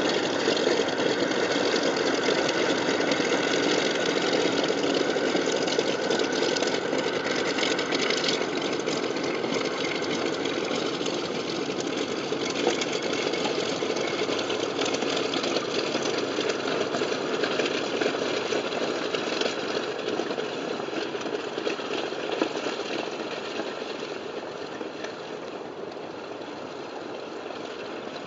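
Canadair CL-215's twin Pratt & Whitney R-2800 radial piston engines running at low taxi power, a steady, rough propeller-plane rumble. It fades over the last several seconds as the aircraft moves away.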